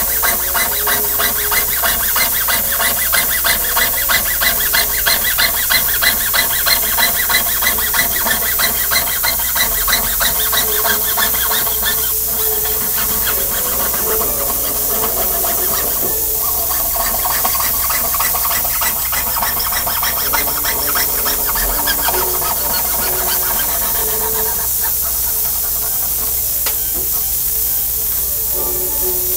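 Jeweller's saw blade cutting a sheet-metal pendant: a rhythmic rasping, about three back-and-forth strokes a second, steadiest in the first twelve seconds and more irregular after.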